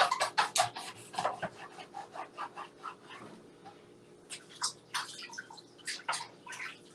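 Wet, irregular clicks and squelches of raw chicken wings being handled and trimmed with a knife.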